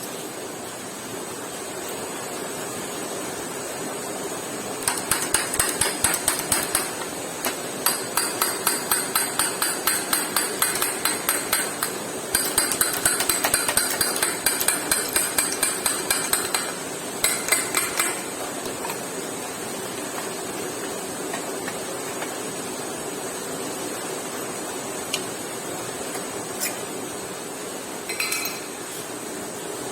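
A hammer striking metal in quick runs of about three ringing blows a second. The runs come in several bursts, followed by a few single taps, over a steady background hiss.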